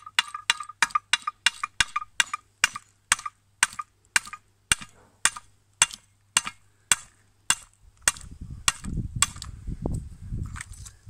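Hammer blows on a rusted iron blacksmith's leg vice, with a nut threaded back on so the threads are not burred, to drive out a seized part soaked in penetrating spray. About two dozen sharp metallic strikes come at roughly three a second and slow as they go. About eight seconds in, a low rumbling noise joins a last few blows.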